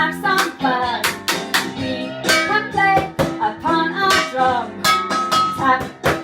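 Children's song with guitar accompaniment: a sung melody over a steady beat of sharp hits, about two to three a second.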